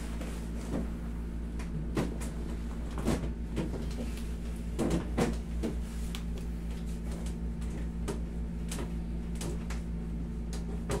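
Irregular creaks, knocks and rubbing from a padded massage table and hands working on a person's hip and back during a massage, over a steady low hum.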